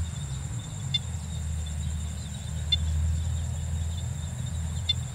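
Evening insect chorus: a steady, high buzz, with three short chirps about a second in, in the middle and near the end, over a louder low rumble.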